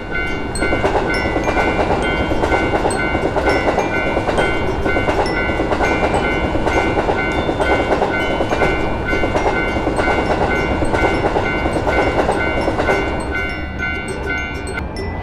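Electric train passing through a level crossing, with a continuous rumble of wheels on the track. Over it a Japanese railroad-crossing bell rings over and over, stopping a little before the end.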